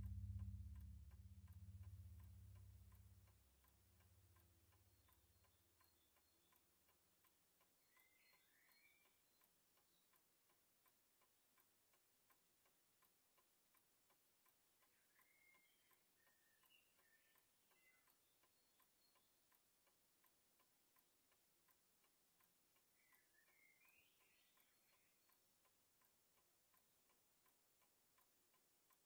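Very faint, steady ticking of an analog alarm clock, about two ticks a second, after a low rumble fades out over the first few seconds. Three brief clusters of faint high chirps come in between the ticks.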